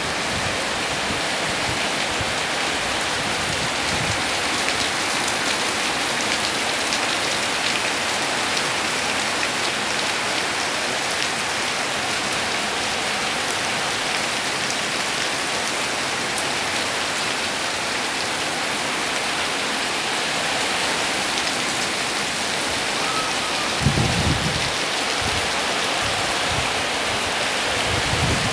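Heavy rain falling steadily in a dense, even hiss. A brief low thump stands out about four-fifths of the way through.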